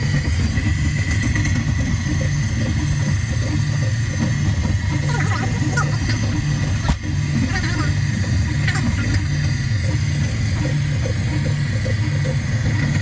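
Steady low rumble of a Russian long-distance passenger train running, heard inside the carriage's small washroom.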